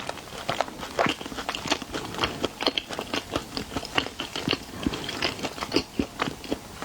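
Close-miked eating: a person biting and chewing shrimp, with many irregular sharp crackling clicks and wet mouth sounds.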